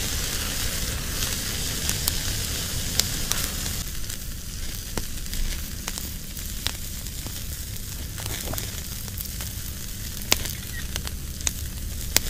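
Steak sizzling as it hits a buttered grill over a hot wood fire, with scattered sharp pops and crackles. The sizzle is strongest in the first few seconds, then eases a little.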